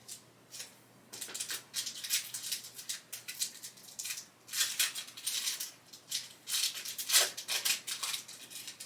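Trading card packaging and cards being handled: bursts of crinkling, rustling wrapper and cards sliding against each other, busiest about a second in, again around the middle, and near the end.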